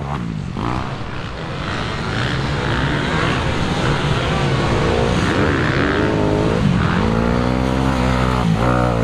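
Motocross dirt bike engines revving on the track, their pitch rising and falling several times as the riders throttle on and off.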